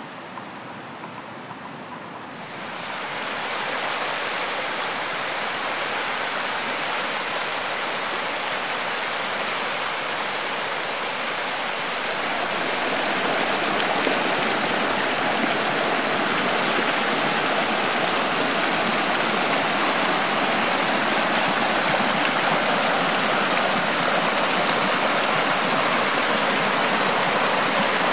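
Steaming hot spring water falling and splashing over rocks: a steady rushing that grows louder about two seconds in and again near the middle.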